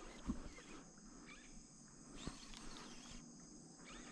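Steady high-pitched insect chorus, a shrill trilling from the forest on the riverbank that swells now and then, with a couple of faint knocks.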